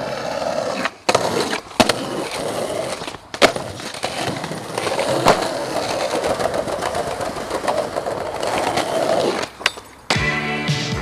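Skateboard wheels rolling over rough tarmac and paving, broken by several sharp clacks of the tail popping and the board landing. The sound drops out briefly a few times, and music comes in about a second before the end.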